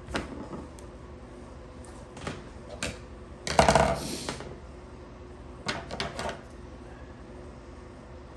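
Handling noise from wiring a plug: a few sharp clicks and taps, with a louder clatter about three and a half seconds in that lasts under a second.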